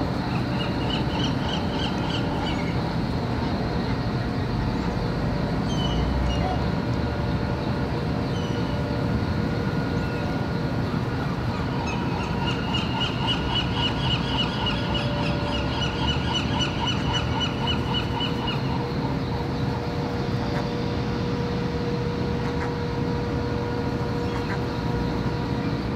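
Gulls calling over a steady rumbling background with a low hum. There is a short, rapidly pulsed call about a second in, and a longer run of rapid pulsed calls midway that lasts several seconds, rising slightly and then falling in pitch.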